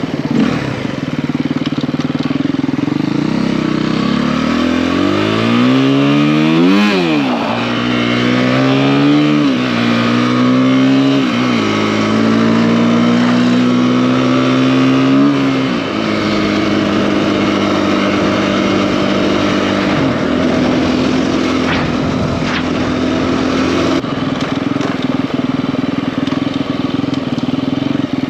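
KTM EXC-F four-stroke single-cylinder enduro engine with a 280 cc big-bore kit, heard on board while riding. It revs up sharply to a peak about seven seconds in, drops and climbs again twice as the rider shifts gears, holds a steady note, then falls back to lower steady revs a little past halfway.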